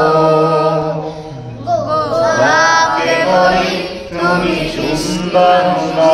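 A man singing a Bengali song about mothers into a microphone, with a group of boys singing along. The first second is one long held note.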